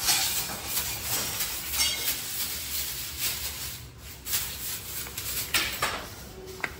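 Irregular footsteps and scuffing on a staircase, a string of uneven short noises.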